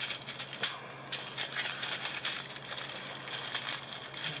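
Small plastic bags of diamond-painting drills crinkling and rustling as they are picked up and handled, with many irregular light clicks.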